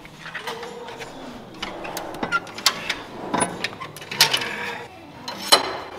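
Irregular metal clanks and knocks from work on a steel truck frame as it is pushed up into line, the loudest about five and a half seconds in.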